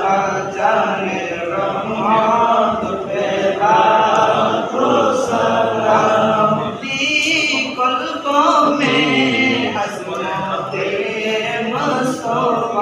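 A group of men singing a devotional chant together, unaccompanied, without a break.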